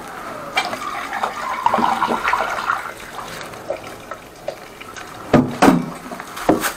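Water splashing and draining at a floor drain, with scattered small clicks and a few sharp knocks of handled tools from about five seconds in.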